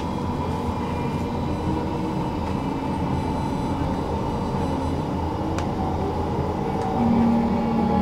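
Tram running along its tracks: a steady rumble of wheels on rail under a low hum with a few held tones. There is a single sharp click about five and a half seconds in, and a louder low hum comes in about seven seconds in.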